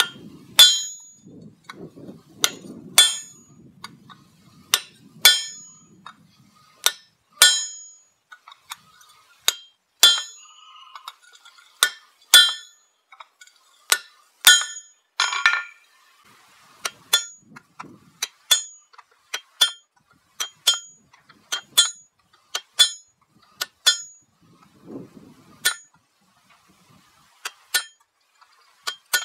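Blacksmith's hammer striking steel on an anvil: ringing metallic blows at about one to two a second, with a short pause near the end. One blow about halfway through rings longer than the rest.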